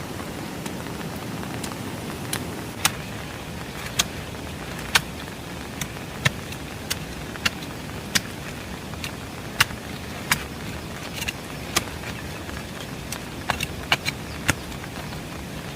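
Steady rain falling, with irregular sharp ticks and clicks, roughly one or two a second.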